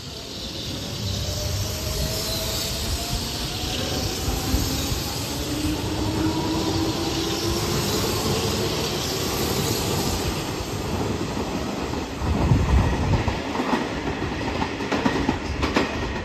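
Hanshin 8000-series electric train pulling out of the station: the traction motors' whine rises in pitch as it gathers speed, over the running noise of the cars passing. About twelve seconds in, the wheels clatter louder over rail joints.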